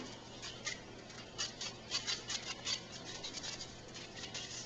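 Airsoft speed loader clicking and rattling as it is worked to push plastic BBs into an airsoft Thompson's magazine, a string of irregular small clicks several times a second. The speed loader is not feeding properly.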